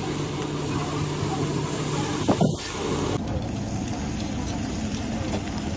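Fish sizzling and hissing on a hot charcoal grill grate, over a steady low hum, with a brief loud knock a little over two seconds in.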